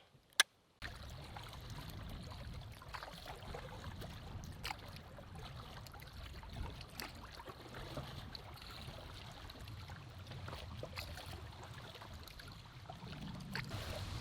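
Water trickling and lapping around a canoe on open water, with a low wind rumble on the microphone and scattered light knocks. It starts about a second in, after a brief silence with a single click.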